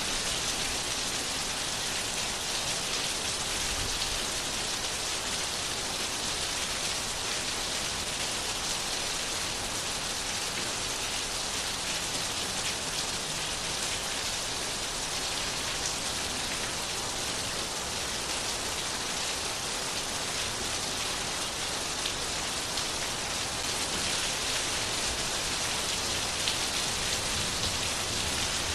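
Steady rain falling on a hard surface, a dense even hiss of many small drops that doesn't let up.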